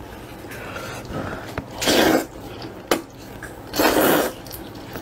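Person slurping hot and sour glass noodles (suan la fen) in chili broth: two long, loud slurps about two seconds apart, with a few small clicks between them.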